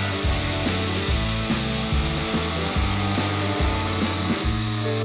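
Parkside PSTK 800 D3 jigsaw cutting steadily through a thick wooden beam, stopping at the very end, with background music playing underneath.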